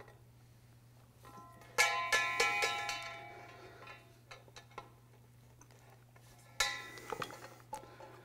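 Background music of plucked string notes: a loud plucked chord about two seconds in, followed by a few quicker notes that fade, and another about six and a half seconds in, over a low steady hum.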